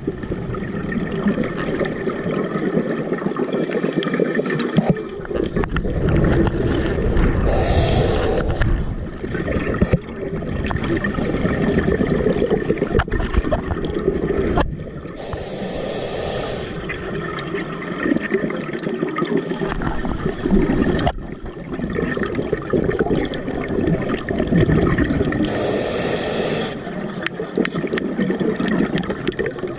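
Scuba regulator breathing underwater: exhaled bubbles gurgling, broken three times by a short hiss of a breath drawn in, about every eight to ten seconds.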